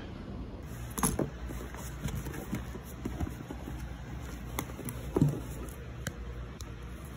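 Light knocks, clicks and rustling from small objects being handled and set into a canvas tote bag on a desk, with the loudest knocks about a second in and about five seconds in, over a low steady hum.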